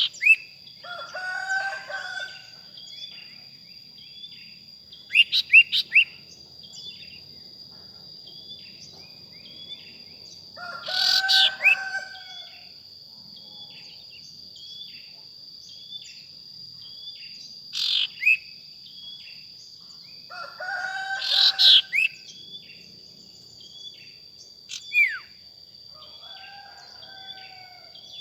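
Sirtu birds calling: short sharp chirps repeating about once a second, louder clustered calls, and a longer, lower call about every ten seconds. Under it all runs a steady high-pitched buzz of insects.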